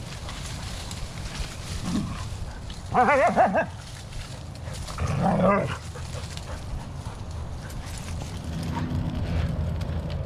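A dog's play vocalizations: two short calls with a wavering pitch, the first about three seconds in and a lower second one about two seconds later, over a steady low rumble.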